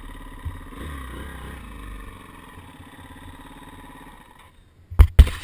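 Dirt bike engine running steadily at low revs as the bike rolls along a dirt trail. The engine sound drops away about four and a half seconds in, and a few loud sharp knocks follow near the end.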